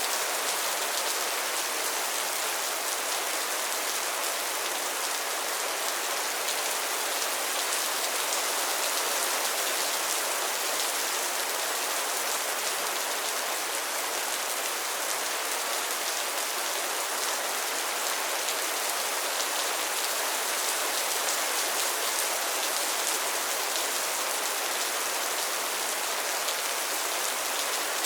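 Steady rain falling on pond water and lily pads, a dense even patter of many small drops.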